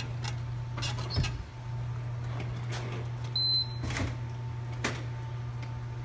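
A school door being unlocked and opened: a series of sharp metallic clicks and clacks from the door hardware, with a short high beep a little past the middle. A steady low hum runs underneath.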